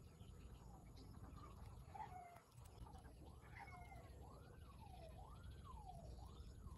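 Faint animal calls in the background, each rising and falling in pitch. They come about once a second in the second half, with a few scattered ones earlier, over a low steady hum.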